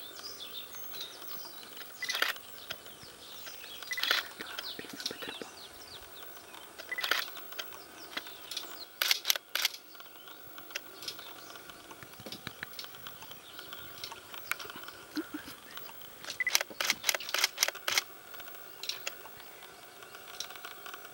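Camera shutter clicks, single ones and quick bursts of several in a row, with a longer burst near the end; birds chirp softly in the background.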